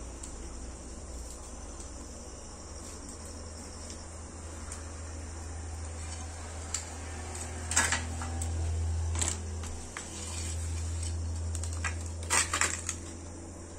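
Crickets chirping steadily over a low hum, with a few short, sharp clattering knocks about eight and nine seconds in and again near the end.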